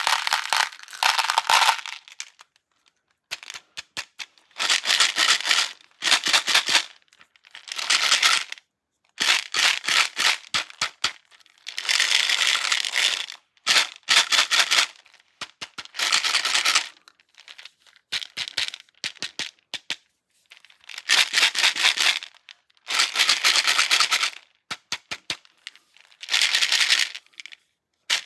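Slime mixed with hard candies being cut for ASMR, making crackling, crunching strokes. There are about a dozen of them, each a second or two long, with short silent pauses between.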